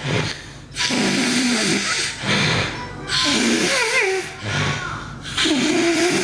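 A girl snoring loudly: rasping, noisy breaths about every second and a half, some carrying a wavering, whistle-like pitch.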